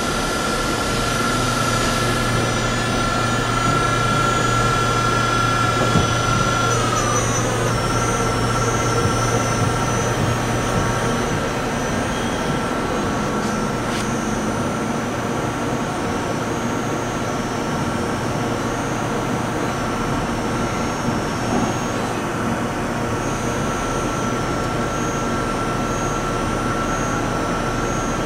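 Okuma & Howa Millac 561VA vertical machining center running a program with an empty spindle, its spindle turning at around 1,000 RPM while the axis drives move the table. It gives a steady mechanical hum with a high whine that slides down in pitch about seven seconds in, and a lower hum that fades out a few seconds later.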